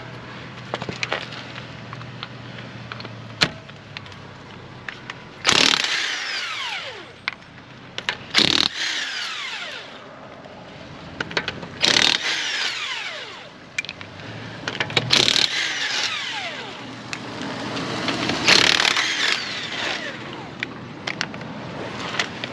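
Ingersoll Rand half-inch impact wrench run in five short bursts, spinning off the wheel's lug nuts; after each burst its motor winds down in a falling whine.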